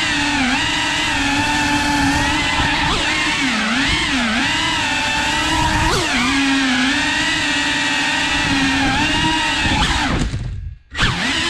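Cinewhoop FPV drone's motors and ducted propellers buzzing, the pitch rising and falling with the throttle. Near the end the buzz cuts out almost completely for a moment as the throttle is chopped, then surges back.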